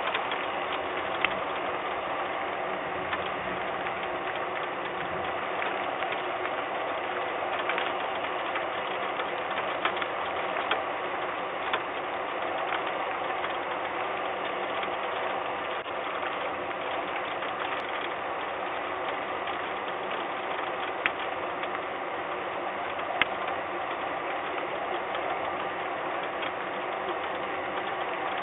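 Steady noise with a few scattered, sharp ticks.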